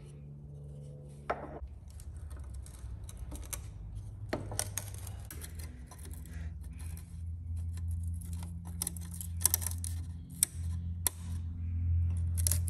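Scattered clicks and clinks of metal tools and parts being handled while motorcycle shock absorbers are assembled with lowering-kit links, over a steady low hum that grows louder near the end.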